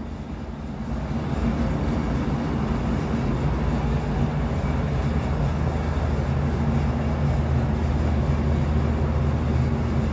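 Steady machine drone with a low hum under a rush of noise, growing louder over the first second and a half and then holding even.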